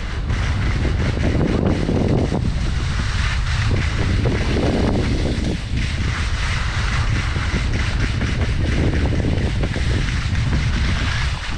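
Wind noise rumbling steadily on the microphone of a skier's camera during a downhill run, with skis hissing and scraping over chopped-up, packed snow in swells that come and go every second or two.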